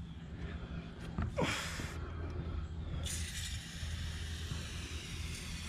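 Aerosol spray can spraying: an even hiss that starts about three seconds in and holds steady. About a second and a half in there is a short falling whoosh, the loudest moment, over a steady low rumble.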